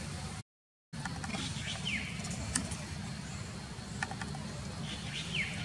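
Outdoor background: a steady low rumble, with a few short, high chirps that fall in pitch and a couple of sharp clicks. The sound cuts out completely for about half a second near the start.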